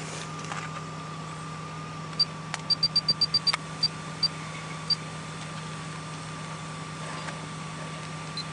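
Steady low hum of an idling vehicle heard inside the cabin, with a faint steady whine above it. From about two seconds in, a quick run of short, high electronic beeps, several in rapid succession, as the car stereo's buttons are pressed to raise the volume while playback is paused.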